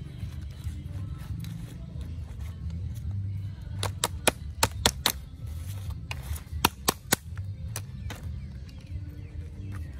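A wooden stick striking a cooked crab's shell to crack it open: sharp cracks, five in quick succession about four seconds in, then four more a couple of seconds later, over a steady low rumble.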